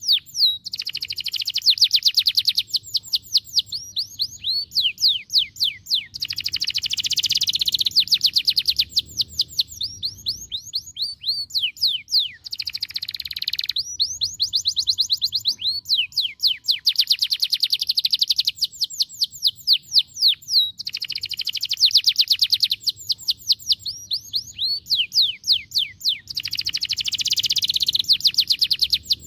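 Domestic canary singing a long continuous song of fast trills, rapid runs of repeated sweeping notes that change phrase every few seconds, with only brief breaks.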